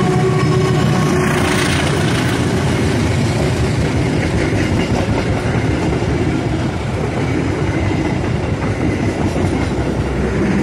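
Passenger train passing close by: the CC203 diesel-electric locomotive goes by first, its engine giving a few steady tones that fade within about two seconds. Then comes the steady, loud noise of the passenger coaches' wheels rolling past on the rails.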